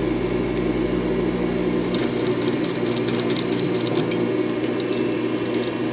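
Sewing machine running steadily as it stitches a half-inch seam across the end of a folded waistband, with light rapid clicking from about two seconds in.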